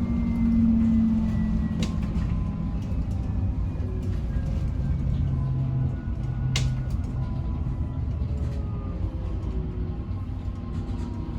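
Interior of a double-deck bus on the move: a steady low rumble with a drive whine falling slowly in pitch as the bus slows, and two sharp rattles or clicks, about two seconds in and again past halfway.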